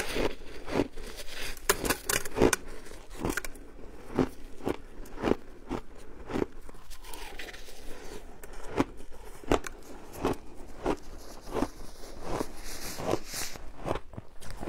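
Close-miked crunching and chewing of mouthfuls of frozen shaved ice, one crisp crunch after another, about one to two a second.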